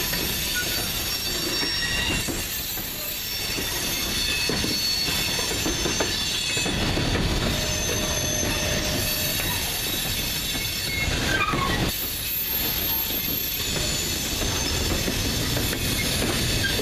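Freight cars rolling past on steel wheels: thin, high wheel squeal over a steady rumble, with clacking as the wheels cross the rail joints and diamond crossing.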